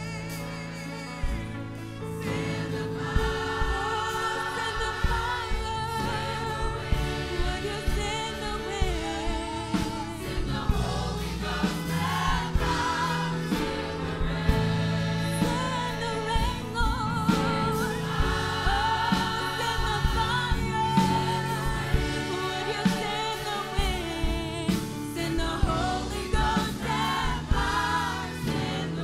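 Church choir singing a gospel song with band accompaniment, over steady bass notes and a regular drum beat.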